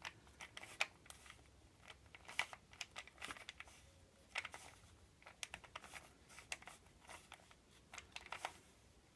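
Rubik's Cube being twisted through a move sequence: faint, irregular plastic clicking and clacking as its layers turn.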